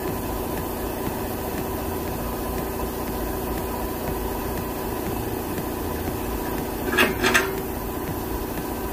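Air compressor running steadily as it builds up pressure, with two brief sharp sounds in quick succession about seven seconds in.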